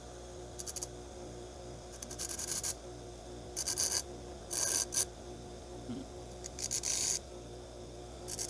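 Baldor bench grinder running at speed with a steady motor hum, as the small teeth of a steel screwdriver bit are pressed lightly against the stone wheel in about six short grinding bursts.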